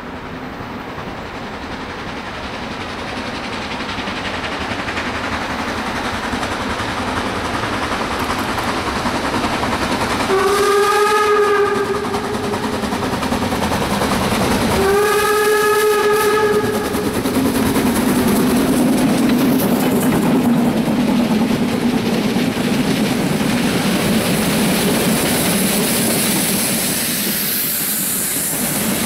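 HSB metre-gauge 2-10-2 tank steam locomotive 99 234 working hard uphill, its exhaust growing louder as it approaches. It sounds its steam whistle twice, each blast about a second and a half long and a few seconds apart, and then its coaches roll past with wheel noise on the rails.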